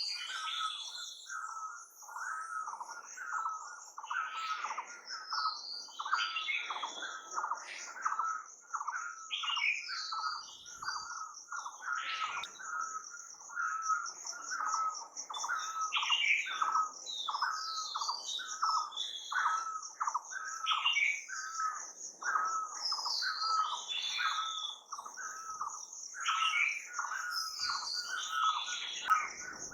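Birds chirping and calling: one note repeats about twice a second while other chirps come in irregularly, over a steady high-pitched drone.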